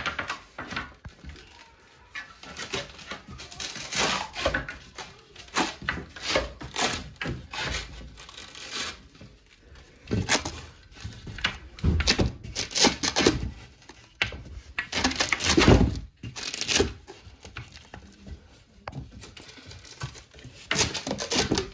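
Wooden bed slats being set and pushed into place on a metal bed frame by hand: irregular knocks, scrapes and rustles throughout.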